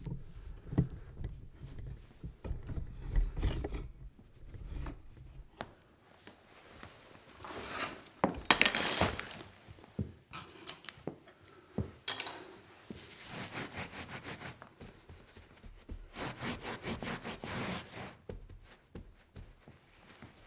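Foley of a spill being cleaned up: scattered knocks and small clinks of things being handled, with several stretches of rubbing and wiping, the longest and loudest about eight seconds in, and a quicker run of strokes near the end.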